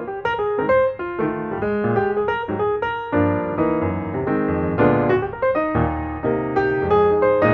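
Background music: a piano or electric-piano tune of struck notes and chords.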